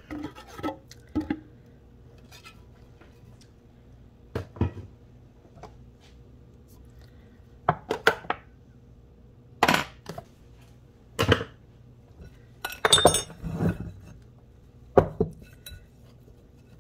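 Kitchenware knocking and clinking on a wooden cutting board: a metal spoon and bowl handled while the seitan dough is turned out onto the board. The knocks come singly, a second or more apart, with a busier cluster of clinks near the end.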